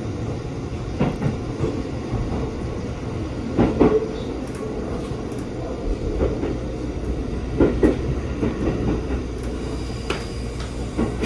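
JR Central 373-series electric train running along the line, heard from inside the passenger car: a steady rumble of wheels on rail, broken by irregular sharp knocks and clacks, loudest about 4 and 8 seconds in.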